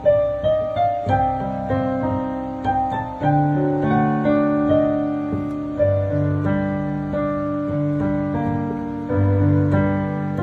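Piano played with both hands: a slow melody of ringing notes over held chords, with deeper bass notes coming in a few seconds in.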